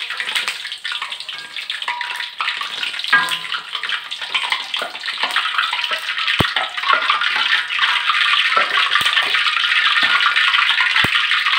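Hot cooking oil sizzling and crackling in a wok used for deep-frying donuts. The sizzle builds up over the first few seconds and then holds steady, with a few light clicks.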